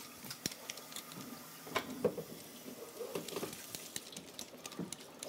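Kitchen clatter: scattered light clicks and knocks of utensils and cookware as food is prepared at the counters and stove.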